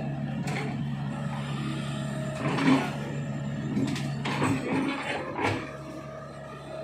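Hitachi Zaxis 110 excavator's diesel engine running steadily while the boom and arm swing. A few sudden knocks and clanks stand out, the loudest about two and a half seconds in and more between four and five and a half seconds.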